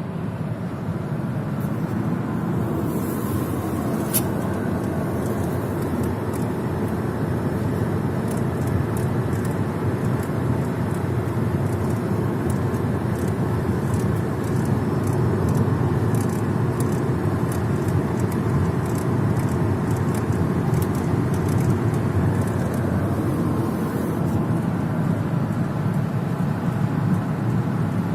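Kia Rio 4 driving, with steady road and running noise and faint clicks recurring through the middle: an extraneous noise that the owner believes comes from the steering rack.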